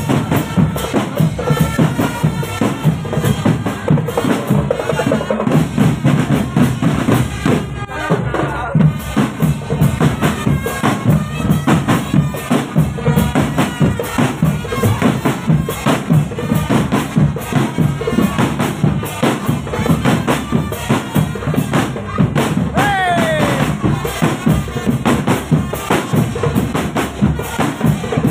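Marching drum band (drumband) playing on parade: a steady beat of snare and bass drums with a reedy melodic line over it.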